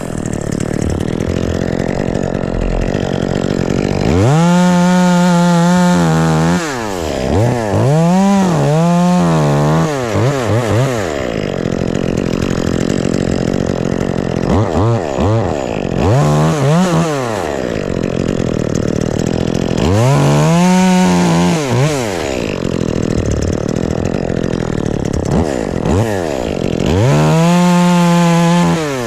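Two-stroke chainsaw cutting wood, repeatedly revved up to a high, steady full-throttle pitch for a second or two and dropping back between cuts.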